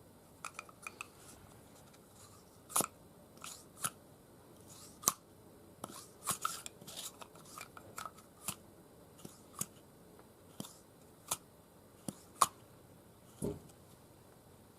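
Irregular sharp clicks and taps of small hard parts and tools being handled while an S&T HK416 airsoft electric gun is taken apart and adjusted, about twenty in all, with the loudest a few seconds in, around the middle and near the end.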